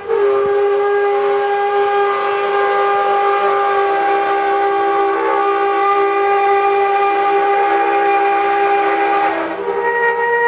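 Multi-chime train horn sounding one long, loud chord of several steady notes. The chord shifts near the end as another note comes in. This is the kind of sound people have taken for 'trumpets in the sky'.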